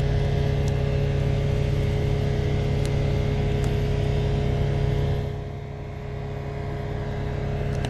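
Steady low outdoor rumble with no speech, dipping briefly about five seconds in and then coming back up.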